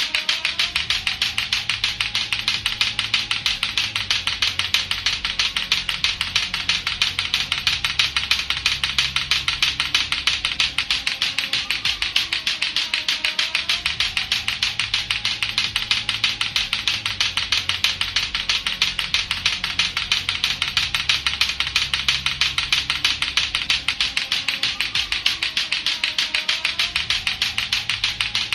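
Latto-latto clacker toy, two hard plastic balls on a string knocking together in a rapid, steady stream of sharp clacks, over a faint looping low background that repeats every twelve seconds or so.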